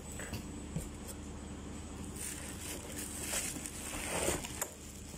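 Irregular rustling and crinkling of plastic packaging with a few light clicks as pressure-washer parts are handled and unpacked, busiest in the second half.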